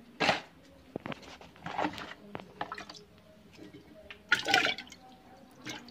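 Water splashing in a glass jar in several short bursts, the loudest about four and a half seconds in.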